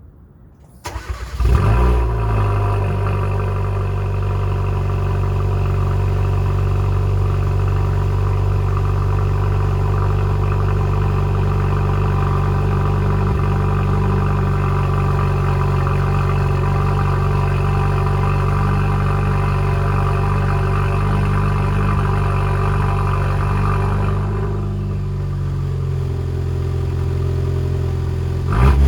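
Cold start of a Hyundai Elantra Sport's 1.6-litre turbocharged four-cylinder, exhausting through a straight pipe into a gutted stock muffler. It cranks briefly about a second in, catches loudly, and settles into a steady fast cold idle. The idle drops a little about 24 seconds in, and there is a short surge near the end.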